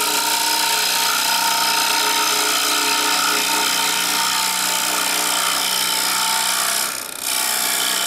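A wood lathe spins a bowl blank while a carbide hollowing tool cuts inside it: a steady hiss of wood being cut over the lathe's hum, easing off for a moment about seven seconds in.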